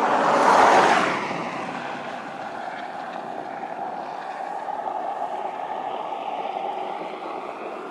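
2019 Kia K900 running steadily at idle, heard from behind the car near its exhaust tips. A rush of noise swells and fades in the first second or so.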